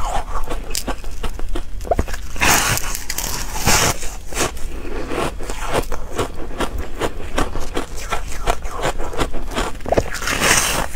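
Close-miked crunching and chewing of a slab of frosty white shaved ice: a steady run of sharp crackles and crunches, with heavier bites about two and a half, four and ten and a half seconds in.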